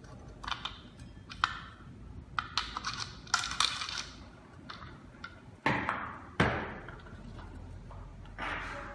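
Clicks, taps and knocks of a fingerprint door lock's front panel and its small parts being handled and fitted on a desk, with two louder knocks about six seconds in. Near the end, a cloth rubs over the panel.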